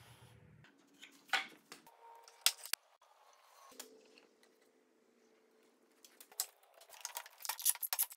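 Workshop handling sounds of wood blocks on a workbench: a few sharp wooden knocks as a block is fitted into a notch in a larger block. Near the end comes a quick run of clicks as bar clamps are set and tightened.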